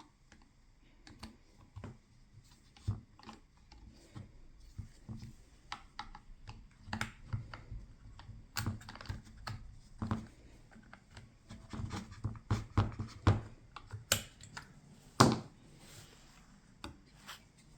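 Irregular light clicks, taps and knocks of small hard parts and tools being handled at a workbench. The clicks get busier in the second half, with one louder knock about fifteen seconds in.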